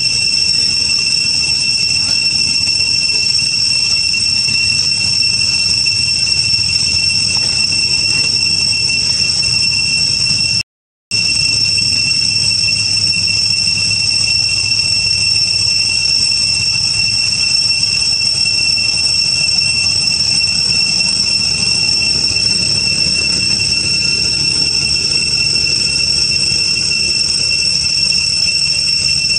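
Cicadas droning in a steady, loud, high-pitched chorus, unbroken except for a sudden moment of silence about eleven seconds in.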